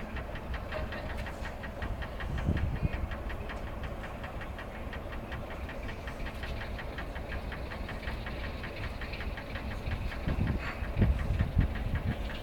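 Class 33 diesel locomotive's Sulzer eight-cylinder engine idling with a steady, rapid beat, with heavier low thuds about two and a half seconds in and again near the end.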